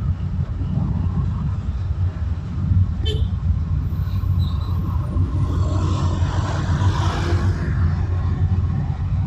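Road traffic heard from a moving car: a steady low rumble of engine and tyres. There is a short click about three seconds in, and another vehicle passes with a swelling and fading hiss around six to eight seconds in.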